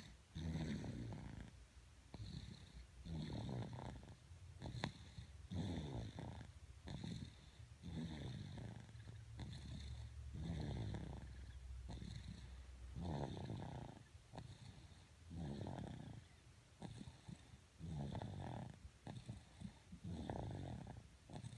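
Steady snoring in deep sleep, one rasping snore every two to three seconds, most of them with a softer second part on the out-breath.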